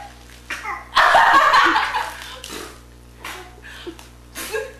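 Laughter: a loud, breathy burst of laughing about a second in that fades over about a second, followed by a few short giggles.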